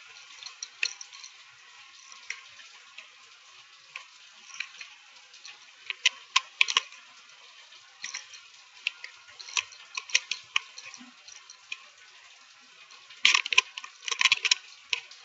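Rain falling: a soft hiss with scattered sharp ticks of drips, which crowd together into a dense cluster near the end.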